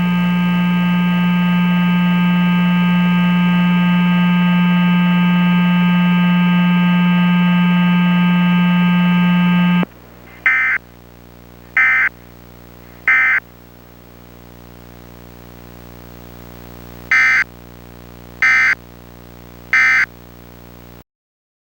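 A steady, loud electronic buzzing tone with many overtones cuts off suddenly about ten seconds in. It is followed by two sets of three short digital data bursts, the Emergency Alert System's SAME End of Message bursts, over a faint hum.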